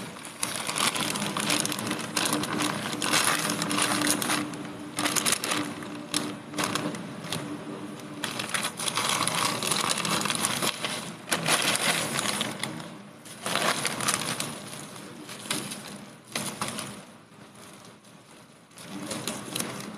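Plastic courier mailer bag crinkling and rustling in irregular bursts as it is handled and opened, with the bubble-wrapped parcel inside rustling as it is slid out near the end.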